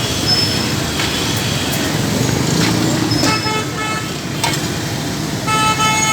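Street traffic noise with a vehicle horn honking: several short toots about halfway through, and another toot near the end.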